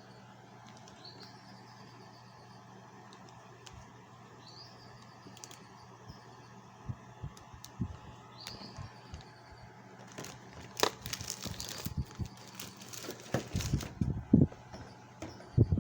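Quiet room with a steady low hum and faint, high chirps repeating every second or two. About ten seconds in comes a few seconds of crackling and clicking, typical of plastic figure packaging being handled.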